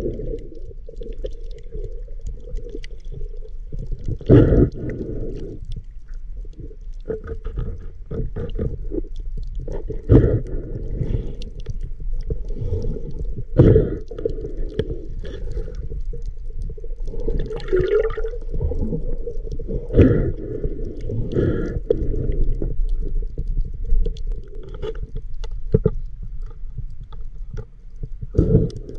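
Muffled underwater sound picked up by a camera below the surface: a constant low rush of moving water, with several louder whooshes every few seconds.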